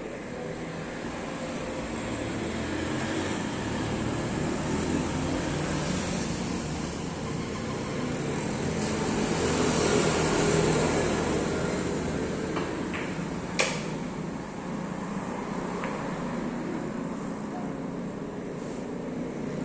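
A single sharp click of carom billiard balls about two-thirds of the way in, with a few fainter clicks around it. Under it a steady traffic-like hum swells to a peak about halfway through and eases off.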